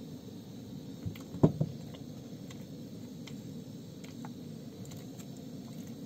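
Camping gas stove burner running steadily under a pot of water, with a short knock about a second and a half in and a few faint ticks.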